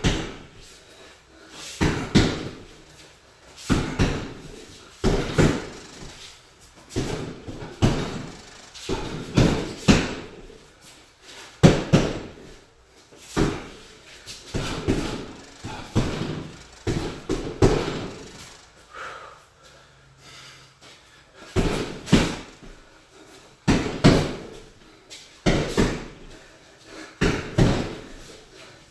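Gloved punches landing on a Title wall-mounted heavy bag: sharp thuds thrown in quick combinations of a few blows, with short pauses between, the longest gaps near a quarter and two-thirds of the way through.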